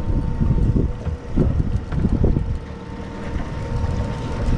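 Wind buffeting the microphone aboard a fishing boat under way, over the boat's motor running, with a faint steady high whine.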